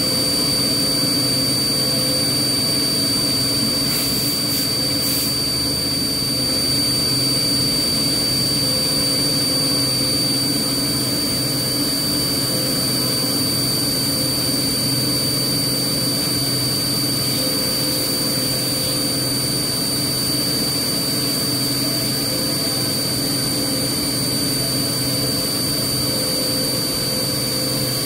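A 4-axis CNC milling machine cutting a pattern into a metal roller under flood coolant: the spindle and end mill run steadily with a constant high whine over a low machine hum.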